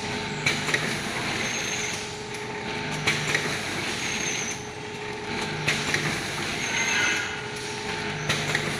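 Powder detergent sachet packing machine running through its cycle about every two and a half seconds: each cycle brings a click and a short low hum over a steady mechanical whine.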